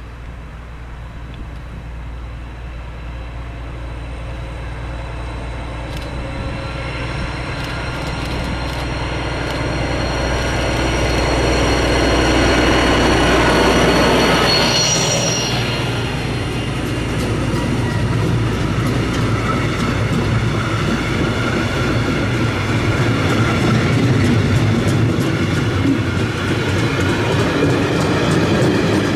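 Container freight train passing close by: the locomotive's rumble builds as it approaches and goes past about halfway through, with a high ringing from the rails that drops in pitch as it passes. Then comes the steady rattle and clatter of the container wagons rolling by.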